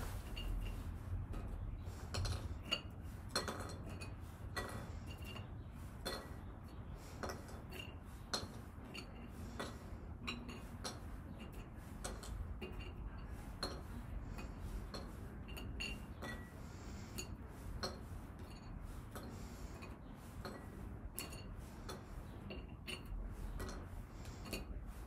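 Chopsticks clicking and tapping against plates and a small plastic container as small snack pieces are picked up and dropped in: a run of light, quick clicks every half second or so.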